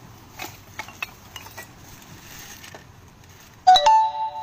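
Small knocks and clicks of salvaged cans, bottles and plastic containers being handled and set down. Near the end, a loud clink that keeps ringing with a few clear tones.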